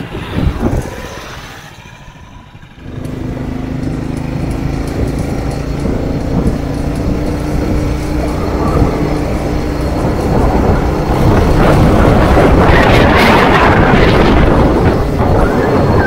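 Engine of a Snow Region SR-21 motorized all-terrain vehicle running while riding. It comes in suddenly about three seconds in as a steady engine note, then grows louder, with more noise over it, toward the end.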